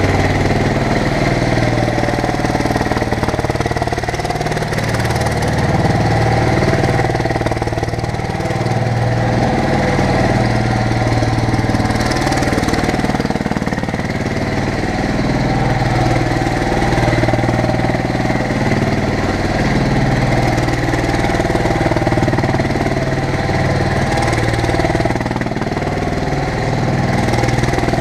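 Bobcat M371 mini skid steer's engine running steadily, its pitch rising and falling a little as the machine is driven.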